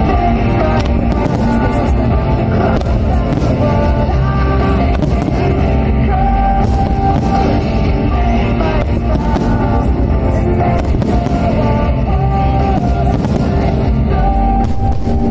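Loud music playing throughout, with the repeated bangs of aerial firework shells bursting through it.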